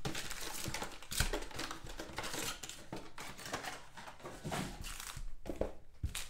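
Trading-card pack wrappers crinkling and tearing as the packs are opened by hand, an irregular rustling with a sharper snap about a second in.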